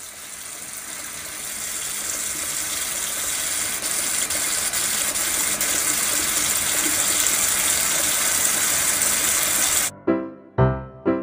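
Kitchen faucet running, a steady stream of water splashing into a sink and slowly growing louder. It cuts off suddenly about ten seconds in, followed by a few short pitched sounds.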